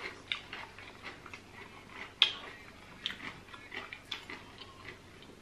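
Eating sounds: irregular small crunches and clicks of Doritos being chewed and metal forks tapping and scraping on the plates, with one sharper click about two seconds in.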